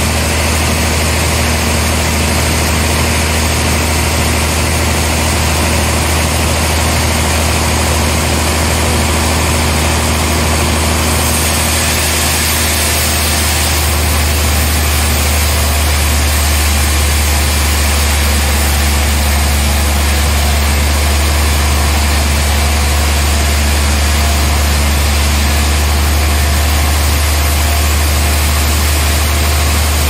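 Sawmill machinery running steadily with a loud, low drone; the low hum grows a little stronger about halfway through.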